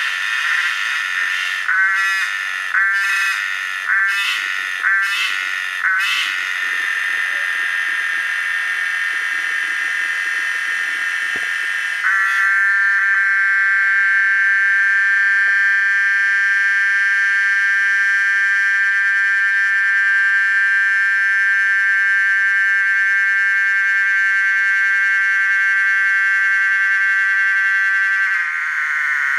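Cicada singing, a loud, shrill, ringing buzz. In the first six seconds it comes in short pulsed phrases about once a second and then settles into a steady buzz. About twelve seconds in, a louder continuous drone starts abruptly and holds until it cuts off near the end.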